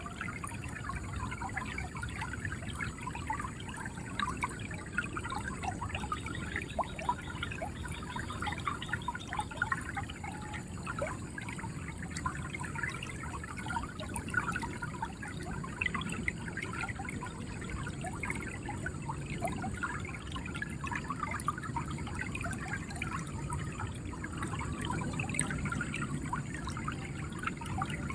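River water flowing steadily, gurgling and trickling, with many small bubbling splashes over a constant rush.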